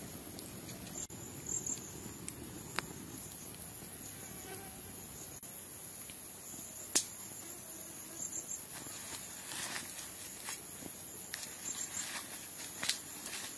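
Steady high-pitched chirring of insects, with a wood fire crackling and giving occasional sharp pops, the loudest about seven seconds in.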